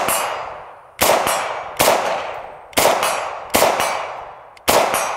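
Ruger Mini-14 .223 semi-automatic rifle firing six shots at a steady pace of about one a second. Each sharp crack is followed by a long echo dying away.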